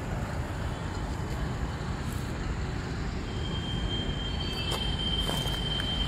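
Steady low rumble of road traffic and vehicles. About halfway through, a thin steady high tone comes in and holds.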